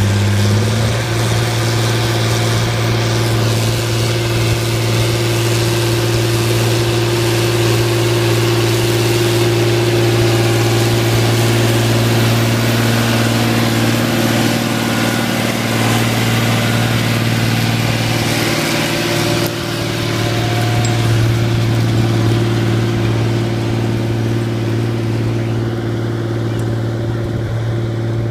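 Fiat 1180 DT tractor's six-cylinder diesel engine running steadily and hard under load as it pulls a four-furrow plough through hard ground, with a brief dip about two-thirds of the way in.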